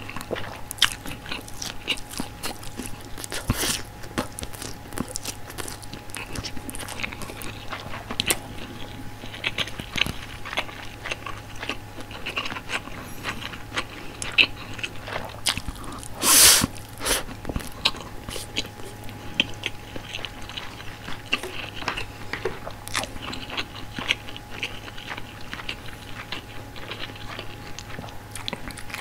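Close-miked eating sounds: biting and chewing sauced frankfurter sausages and white rice, with many short wet clicks and snaps from the mouth. There is one much louder burst just past the middle.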